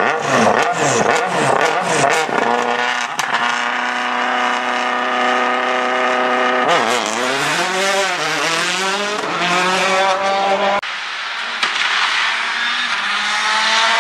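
Rally car engine at full throttle on a stage: revs swing rapidly up and down through the first couple of seconds, then hold steady at high revs. The revs then fall and climb again twice. After an abrupt cut about eleven seconds in, another rally car's engine is heard climbing in revs.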